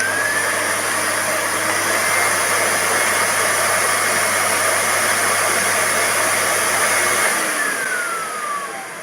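Miele S528 canister vacuum cleaner running: a loud rush of air with a motor whine that steps up in pitch over the first couple of seconds as the power level is raised. The whine holds steady, then winds down from about seven seconds in.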